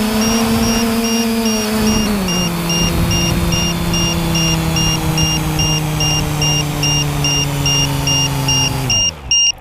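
TBS Discovery quadcopter's brushless motors spinning at idle on the ground. They step down in pitch about two seconds in, then wind down to a stop near the end. A high beep repeats throughout, about two and a half times a second.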